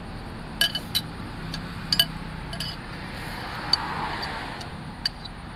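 Metal spoons and forks clinking against ceramic soup bowls: about half a dozen sharp, separate clinks.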